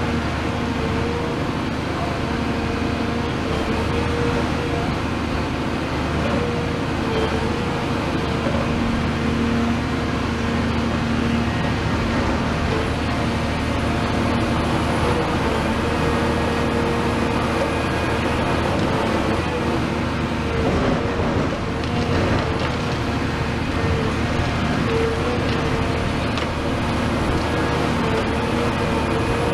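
Caterpillar 336F excavator's C9.3 diesel engine and hydraulics running steadily, a constant hum with tones that swell and fade as the machine works.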